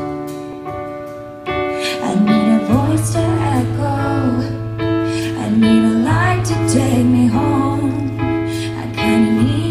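Live ballad intro: held keyboard chords with a woman singing wordless, gliding vocal lines over them. A low held bass note comes in about three seconds in.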